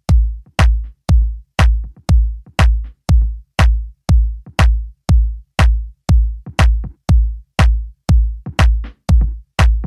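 A lone kick-drum beat from the song's intro, a deep thud with a sharp click on each hit, repeating evenly about twice a second.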